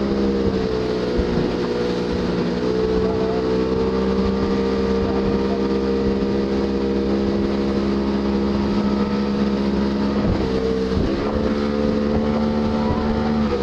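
Motorboat engine running steadily at towing speed, pulling a kneeboarder, its pitch shifting slightly a few times as the revs change.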